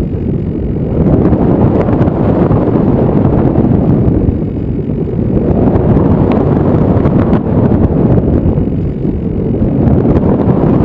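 Wind rushing over the onboard camera microphone of a model airplane in flight. The rush is loud and swells and eases every few seconds, with a thin steady high whine behind it.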